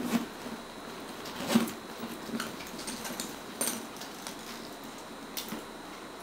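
Leather satchel being handled and set down: scattered light clicks and rustles from its leather and metal fittings, the sharpest about a second and a half in.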